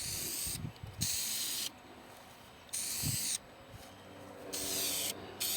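Aerosol rattle can of epoxy appliance-white spray paint hissing in short bursts, about five passes of under a second each.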